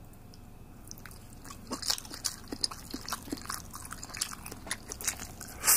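A person eating close to the microphone, chewing and biting a mouthful of fish sausage and rice, with many small wet clicks and smacks. A louder crunchy burst comes near the end.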